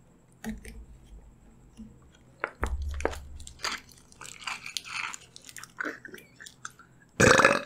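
Slurping and sucking through the straw of a small Maaza juice carton, with small clicks and crackles as the carton is squeezed in the hand. A louder, noisy slurp comes near the end.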